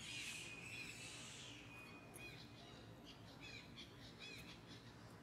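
Faint background of small birds chirping, short hooked calls repeating every second or so, with a brief hissing buzz in the first second and a half.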